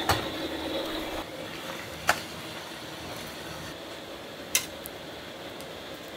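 Firewood being handled: a few sharp wooden knocks, one at the very start, one about two seconds in and one about four and a half seconds in, over a steady hiss.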